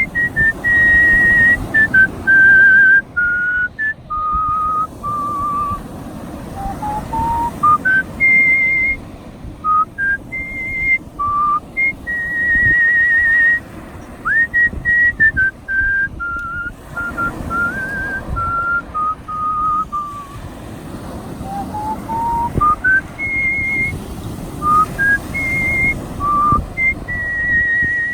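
Artistic human whistling of a melody: a single clear, pure tone moving through phrases, with vibrato on the held high notes and upward slides into some notes. A steady low rush runs beneath.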